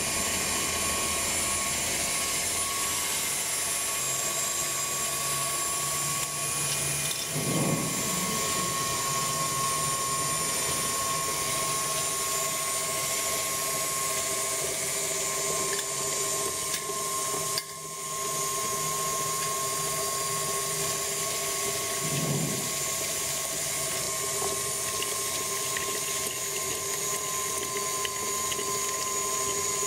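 Electric heavy-duty stand mixer running steadily with a constant motor whine as its beater whips an ice cream base that liquid nitrogen is freezing.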